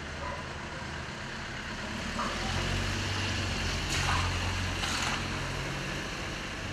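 A light van driving slowly past on a wet street: a low engine hum with tyre noise that builds after about two seconds and is loudest around the middle.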